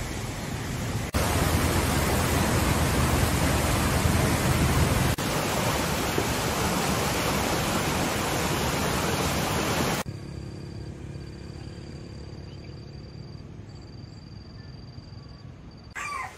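Swollen brown floodwater rushing through a river channel and under a bridge: a loud, steady roar of water that jumps in level at each cut. About ten seconds in it gives way to quieter outdoor ambience with a thin, steady high tone, and a brief sliding call just before the end.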